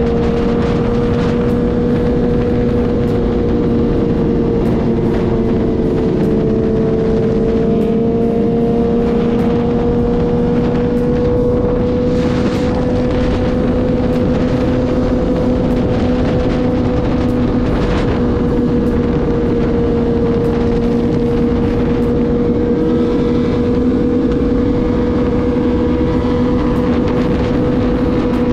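Motorcycle engine running at a steady cruising speed: a constant drone that barely changes pitch, over a steady rushing road and wind noise.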